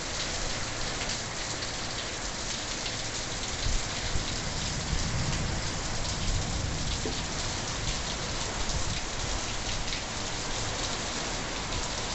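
Heavy rain pouring steadily: a dense hiss of countless drops striking leaves and surfaces, with an uneven low rumble underneath and a couple of louder low bumps about four seconds in.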